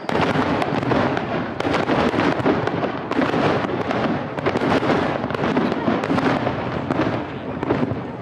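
Fireworks display going off in a dense barrage: a continuous run of crackling pops and bursts, many to the second.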